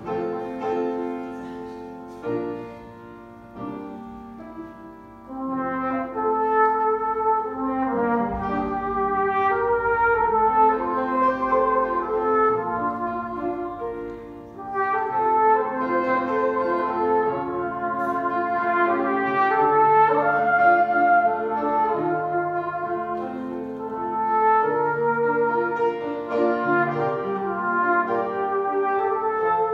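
Flugelhorn and euphonium playing a slow, lyrical duet with piano accompaniment. The music is soft for the first few seconds and grows fuller from about five seconds in.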